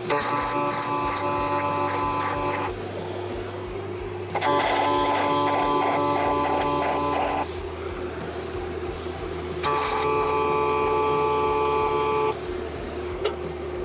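MIG welder laying three short stitch welds on the steel inner braces of a tube bender base, each arc running about three seconds with a steady buzz, stopping between beads.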